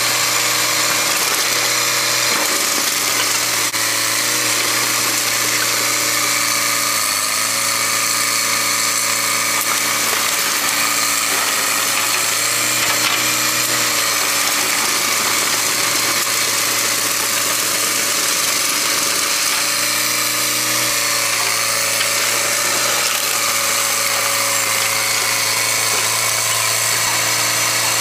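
Diesel engine of a Caterpillar track loader running steadily under load, its pitch dipping briefly twice as it works.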